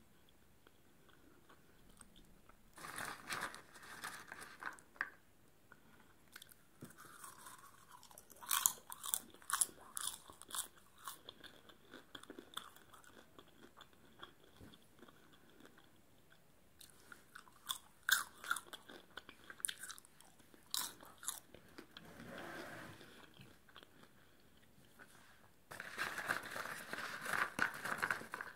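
Popcorn crunched and chewed close to the microphone, in spells of sharp crackly bites with quieter gaps between. Near the end a hand rummages through the popcorn in a plastic tub.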